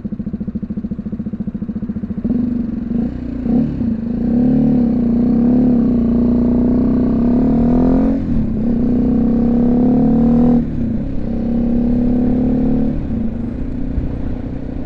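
BMW G310GS's single-cylinder engine running steadily, then from about two seconds in revving up and accelerating, with the revs dropping briefly at gear changes about eight and ten and a half seconds in.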